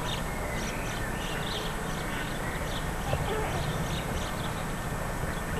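Faint birds chirping at intervals over a steady background hiss.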